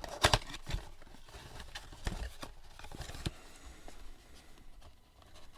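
Scattered light clicks and knocks of things being handled, with a couple of louder knocks just after the start.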